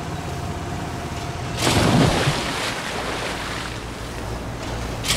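Boat motor running steadily over rushing water and wind noise, with a sudden louder rush of noise about a second and a half in and another jump in loudness near the end.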